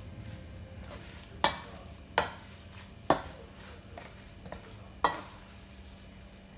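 Metal spoon stirring ground pork siomai filling in a stainless steel mixing bowl, clinking sharply against the bowl four times with a short metallic ring after each.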